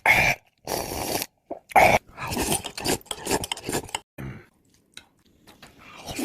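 Close-miked eating noises: chewing a mouthful of rice and side dishes in a string of short, irregular bursts, growing quieter about four seconds in.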